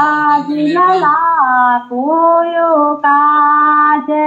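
A woman singing a Kumaoni shakunakhar, the auspicious ritual song, in long held notes that glide from one pitch to the next, with short breaks between phrases. It is heard through a small portable Bluetooth speaker relaying a phone call.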